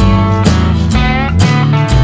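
Background music led by strummed guitar, with a steady beat of about two beats a second.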